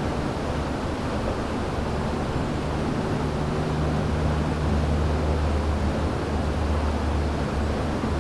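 River water flowing in a steady, even rush, with a low steady hum beneath it that grows slightly stronger about halfway through.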